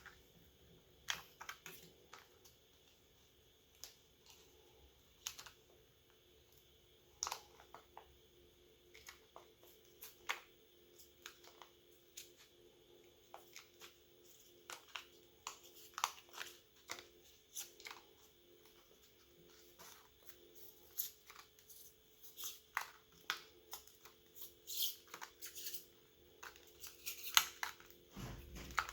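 Small irregular clicks, snaps and scrapes of hand tools on the plastic casing and parts of a Realme C33 smartphone as it is taken apart, sparse at first and busier in the second half, over a faint steady hum.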